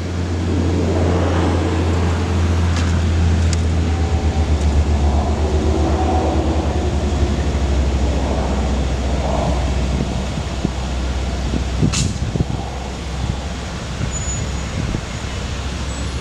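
GMC C5500 bucket truck's engine running with a steady low drone while it powers the hydraulic aerial boom as the boom moves. A single sharp click sounds about twelve seconds in.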